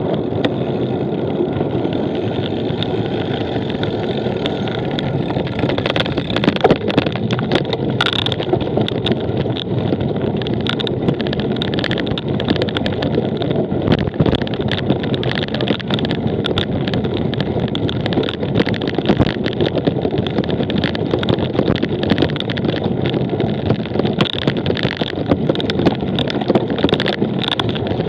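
Steady wind rush over the microphone of a camera riding on a cyclocross bike, with frequent small rattles and knocks from the bike over rough ground.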